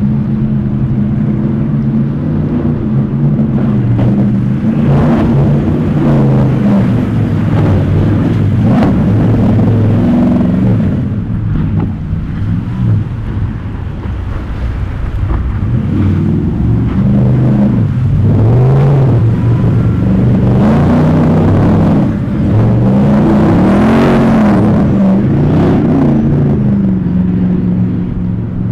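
High-performance speedboat's engines running hard, their pitch rising and falling again and again as the throttle is worked.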